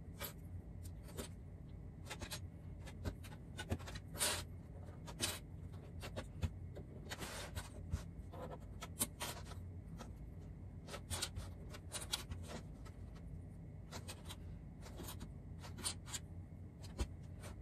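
Small plastic sewing clips clicking onto the edges of layered fabric, with the fabric rustling and sliding on a cutting mat: a faint, irregular string of light clicks.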